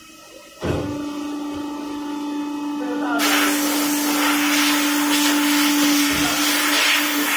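Vacuum membrane press machine running: a steady motor hum starts about a second in, and about three seconds in a loud rushing hiss of air joins it. The hum stops near the end.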